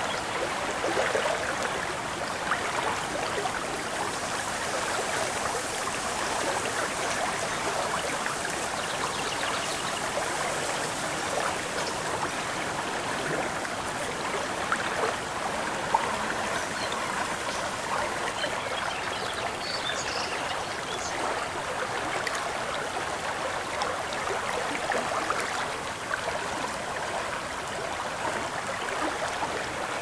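Lake water lapping and trickling against the shore, a steady, even splashing. A few faint bird chirps come in about two-thirds of the way through.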